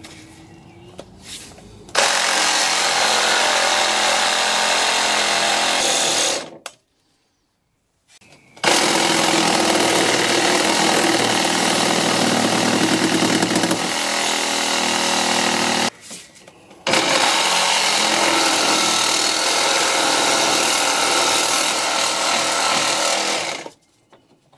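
Handheld power saw cutting through a seized steel eccentric camber/toe bolt where it passes between an aluminium control arm and subframe, the bolt being sacrificed to free the arm. The saw runs in three long steady cuts, stopping briefly about a quarter of the way in and again about two-thirds of the way in.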